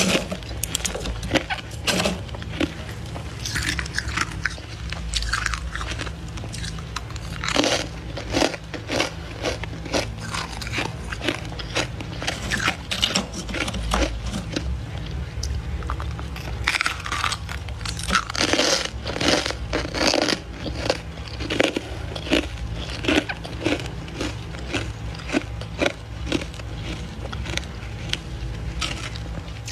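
Thick, snowy freezer frost crunched and squeaking as it is scraped with a plastic scraper and squeezed by hand: a long run of irregular crunches, thickest in clusters around the middle and a little after, over a steady low hum.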